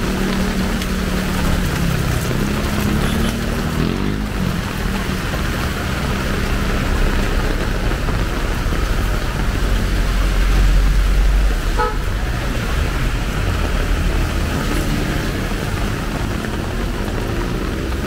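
Heavy rain and traffic on a wet road: a steady hiss of rain and tyre spray, with a passing engine's hum in the first few seconds and a heavy vehicle's low rumble past the middle. A short horn toot sounds about twelve seconds in.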